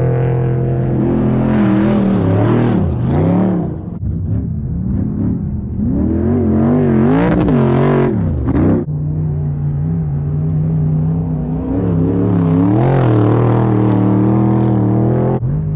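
Off-road race vehicle engine, the throttle opening and closing so the pitch climbs and drops sharply several times, with steadier running in between.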